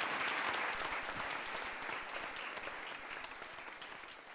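Audience and jury applauding, the clapping slowly dying away.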